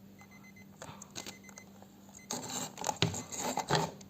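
Plastic alarm clock being handled, with clicks of its buttons and a clatter of rattling and rubbing from about two seconds in, plus faint short high beeps repeating in the background.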